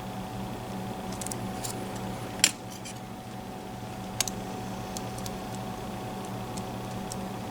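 Small metallic clicks and ticks of lock picks and a tension tool working inside a Mul-T-Lock MT5+ cylinder, scattered and irregular, with one sharper click about two and a half seconds in. A steady hum runs underneath.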